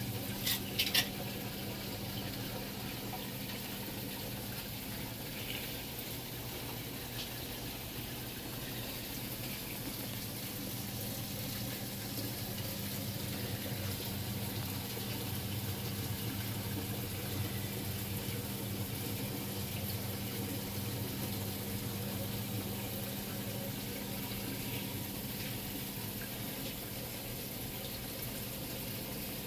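Saltwater aquarium's water circulation: water running and trickling steadily, over a constant low pump hum. A few light clicks come about a second in.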